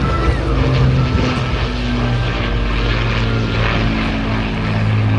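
Propeller-driven piston-engined aircraft flying past, a loud steady engine drone with a few slowly shifting low tones.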